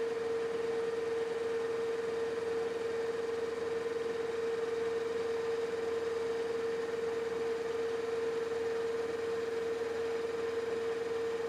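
Metal lathe running steadily, with a constant mid-pitched whine over the steady noise of the machine.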